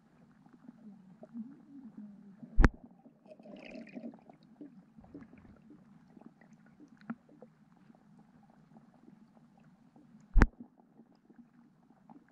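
Muffled underwater ambience picked up through a submerged camera: a steady low rumble with faint scattered ticks, broken by two sharp knocks, one about two and a half seconds in and one about ten seconds in.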